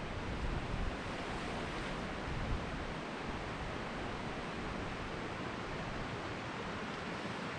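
Steady rushing of wind through the trees, with gusts buffeting the microphone as a low rumble in the first second.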